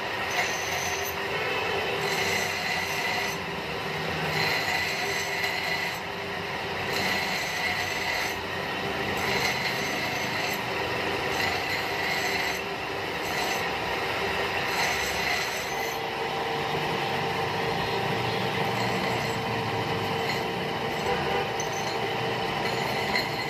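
Belt-driven bench grinding wheel running with a steel hammer head pressed against it, a steady rasping grind over a high whine from the spinning wheel and drive.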